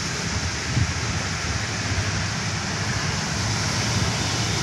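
Steady hiss of heavy rain with a low, uneven rumble underneath, like wind on the microphone.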